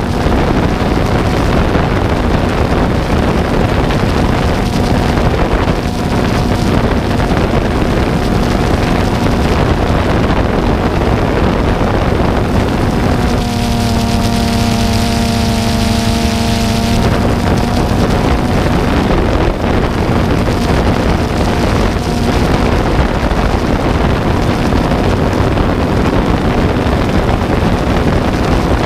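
The motor of the aircraft carrying the camera running steadily, with a constant hum and wind rushing over the microphone. About halfway through, for roughly three seconds, the hum turns fuller and more tonal, then settles back.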